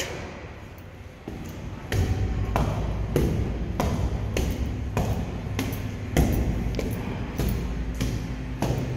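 Footsteps climbing stairs: a regular thud about every 0.6 seconds, over a low steady rumble.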